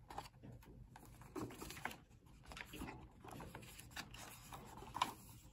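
Faint rustling of paper pages and soft taps as a picture book is opened and its pages are turned by hand on a book stand.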